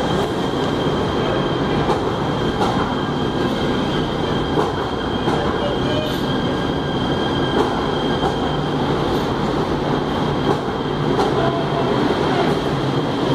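Subway train rolling past alongside the platform: a steady rumble of steel wheels on rail with a thin, high steady whine and a click every second or so.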